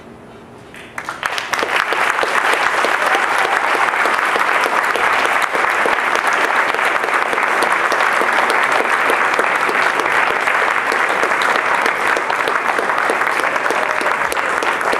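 Audience applauding: dense, steady clapping that breaks out about a second in and keeps up.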